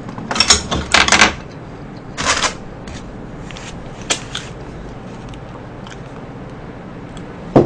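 Close-miked eating and food-handling noises at a takeout tray. There is a cluster of short rustling, scraping sounds in the first second or so, another around two seconds in, then a single click near four seconds, and little after that.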